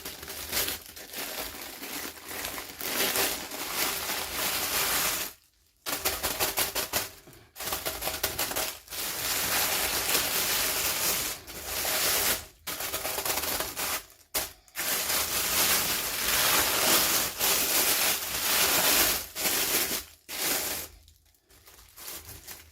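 Plastic toy packaging being crinkled and torn open by hand, in long crackling bursts broken by brief pauses.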